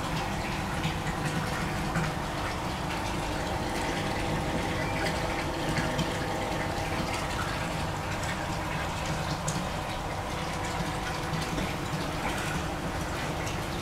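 Water running steadily into a koi tank, with a steady hum beneath it.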